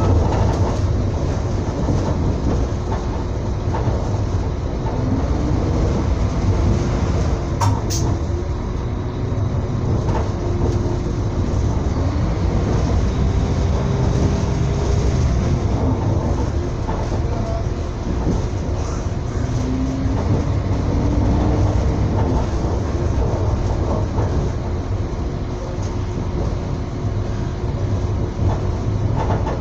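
Train running along the track: a steady heavy rumble, with faint wavering whining tones that come and go and a single sharp click about eight seconds in.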